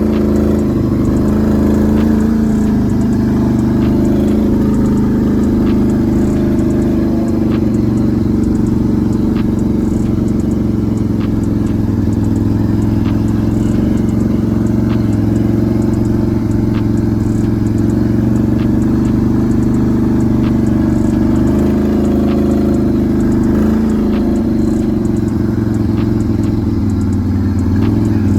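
Can-Am Renegade 1000 XMR ATV's V-twin engine running under way at steady speed, its pitch dipping and rising a few times.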